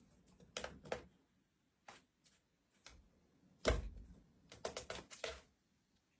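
Irregular short clicks and light knocks, with a louder knock a little under four seconds in and a quick run of clicks a second later.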